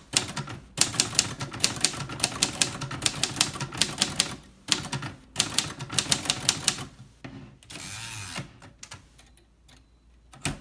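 1955 Royal Quiet De Luxe manual typewriter being typed on: two quick runs of sharp typebar strikes, several a second, with a short pause between them. A brief rasp comes about eight seconds in, followed by a few scattered clicks.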